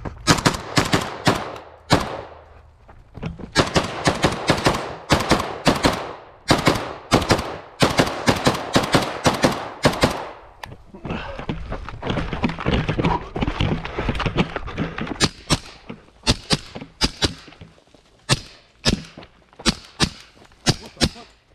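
Gunshots from an AK-pattern RPK rifle in a quick string of about three shots a second through the first half. Later a second string of shots follows from a pistol fitted with a suppressor, an HK Mark 23 in .45 ACP.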